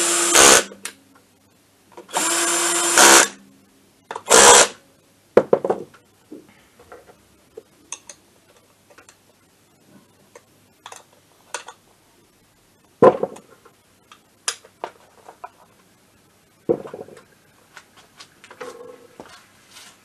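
Cordless drill-driver running in short bursts while tightening fasteners on a scooter engine: one run ends about half a second in, a second run lasts about a second, and a brief burst follows. After that come scattered light clicks and knocks of tools and parts being handled.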